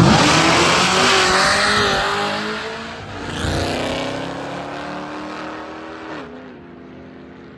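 Dodge Challenger SRT Hellcat, a supercharged Hemi V8, and a Cadillac CTS-V drag racing off the line. Their engine notes climb, dip at each gear change about three seconds in and again near six seconds, and fade steadily as the cars pull away down the strip.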